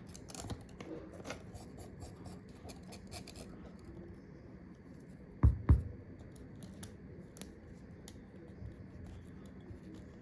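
Small clicks, scratches and ticks of hand tools working on a phone's parts, with two sharp knocks close together about five and a half seconds in.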